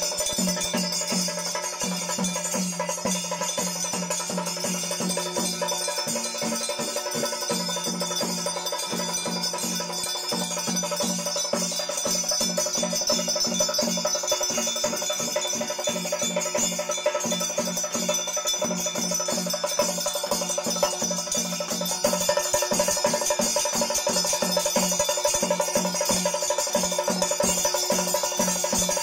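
Temple bells ringing continuously during puja, over a fast, even beat of low strokes at about four a second. It grows louder about three-quarters of the way through.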